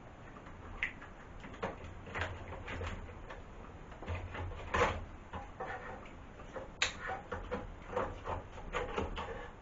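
Irregular clicks, knocks and rattles of plastic and metal parts being handled and pulled loose while a Gen 1 Toyota Prius hybrid battery pack is dismantled by hand, with its orange high-voltage cable and connector being worked free. There are two sharper knocks, one about halfway through and one about two seconds later.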